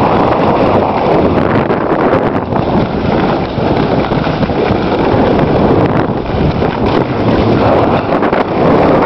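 Loud, steady wind rushing over a skier's camera microphone while moving downhill, mixed with the hiss of skis running over packed snow.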